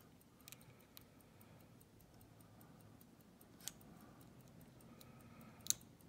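Faint metallic clicking of a pick and tension wrench working the pin stacks inside a Faultless lock cylinder. There is a sharper click about two thirds of the way through and a louder one near the end, as pins set.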